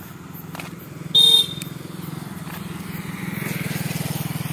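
Motorcycle engine idling with a steady, even pulse, slightly louder towards the end. A short, loud beep cuts in about a second in.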